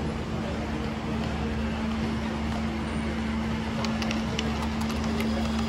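Lionel LionChief Blue Comet O-gauge model train running on its track over a steady hum; from about four seconds in, a rapid run of sharp clicks as it comes closer.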